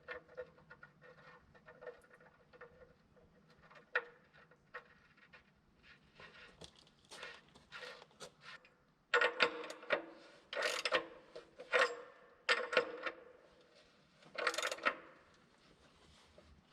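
Small metal fittings and hand tools being handled: irregular clinks, taps and scrapes, with a run of louder sharp clanks from about nine to fifteen seconds in, as a quick-connect drain plug and its bushing are readied for fitting.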